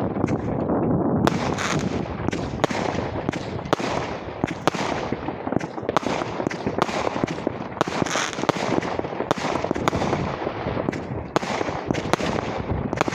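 Many fireworks going off across a town at once: a dense, continuous crackle and rumble of distant bursts, with sharper bangs several times a second.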